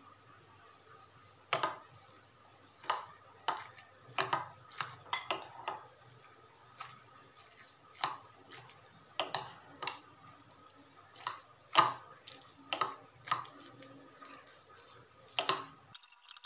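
Metal spoon clinking against a glass bowl while stirring rice and vegetables, a string of sharp, irregular clinks starting about a second and a half in.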